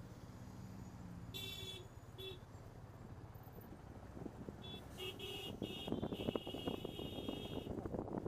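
Car horns honking: two short honks, then a cluster of honks ending in one long blast of about two seconds, over the low steady running of a motorcycle engine. Wind buffets the microphone in the second half.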